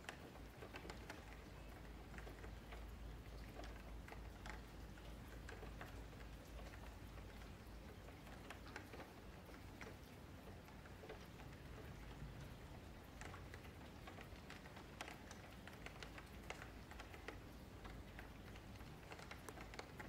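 Faint, irregular clicks of a computer keyboard and mouse, over a low steady hum.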